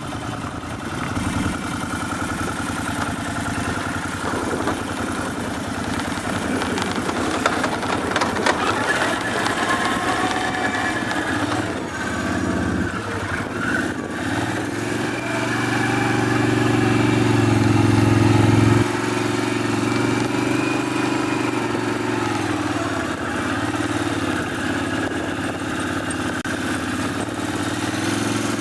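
ATV engine running as the machine drives over rough desert dirt and rock. Just past halfway the engine note climbs under throttle, then drops off abruptly and settles into steadier, lower running.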